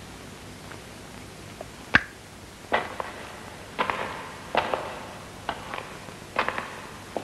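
Footsteps on a hard floor, about one step a second, after a single sharp click about two seconds in.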